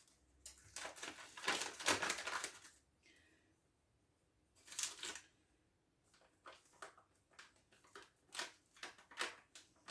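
Crinkling and rustling of a packet of lemon pudding powder being handled, in clusters of short crackles over the first two seconds and once again near the middle, with scattered light clicks and taps after that.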